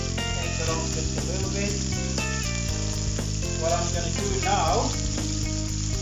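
Thin rib-eye steak sizzling in a hot, oiled frying pan, under background music with sustained notes that change every fraction of a second.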